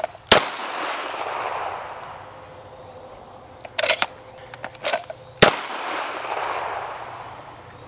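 Pistol shots on an open range: a loud shot just after the start and another about five seconds later, each followed by a long fading echo, with a few smaller sharp cracks and clanks in between.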